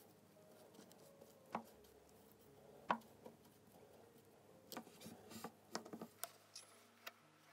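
Faint, scattered light clicks and taps of small hard parts being handled. The sharpest comes about three seconds in, and a quick cluster follows near the end.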